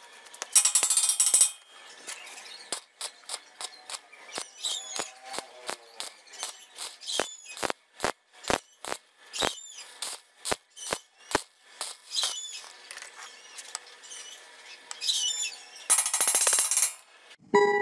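Stick (arc) welding on steel tubing, the arc crackling in short bursts about half a second in and again near the end. In between comes a run of sharp metal taps from a chipping hammer knocking slag off the welds.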